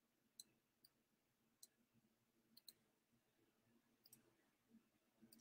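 Near silence with faint computer mouse clicks, about eight at uneven spacing, some in quick pairs, as points are dropped on a map.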